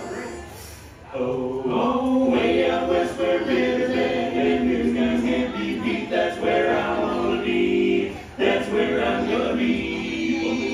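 A choir singing in several voices, holding long notes; it comes in about a second in and breaks briefly near the end.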